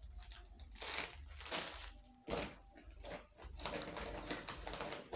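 Plastic packaging and a shopping bag rustling and crinkling in irregular bursts as a pack of serviettes is handled and the bag is rummaged through.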